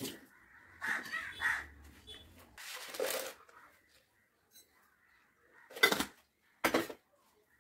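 Crows cawing, with two loud, harsh caws near the end. Earlier come a few knocks and scrapes of an aluminium pressure cooker being carried from the sink and set down on the counter.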